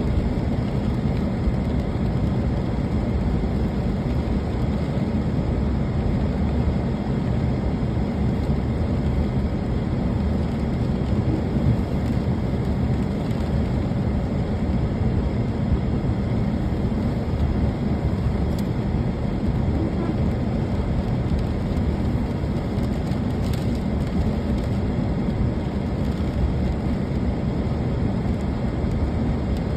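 Steady rain falling, an even rushing noise with a deep rumble underneath.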